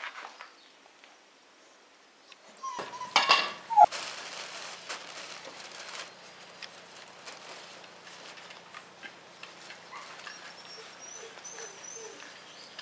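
Five-week-old Tervueren puppies playing: a short, loud yelp falling in pitch about three seconds in, then scattered light clicks and a few faint squeaks over a low outdoor background.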